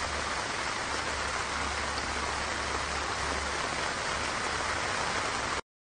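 Heavy rain pouring down on a flooded street: a steady hiss with a low rumble underneath, which cuts off abruptly near the end.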